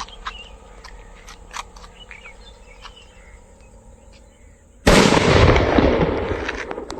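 Homemade bijli bomb, a used sky-shot tube packed with matchstick powder and sealed with clay and hot glue, going off about five seconds in: a sudden loud bang that dies away over about two seconds. Before it, faint background with scattered small clicks.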